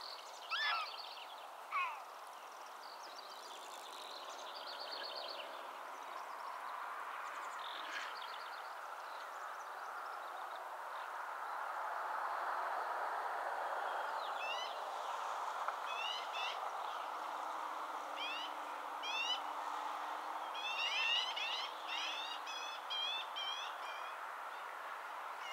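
A series of short, sharp rising chirps repeats from about midway and comes faster near the end, over a steady background rush. Two falling calls sound about a second in.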